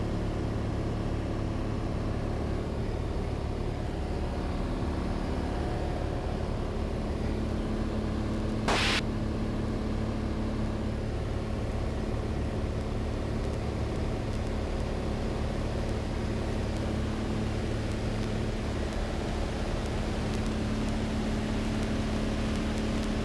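Cessna 182's piston engine and propeller droning steadily in cruise, heard inside the cabin. There is one brief click about nine seconds in.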